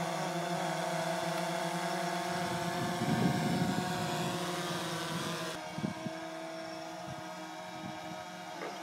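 DJI Phantom quadcopter's propellers and motors humming steadily in a hover, several steady pitches at once. The higher hiss drops off suddenly about two-thirds of the way in.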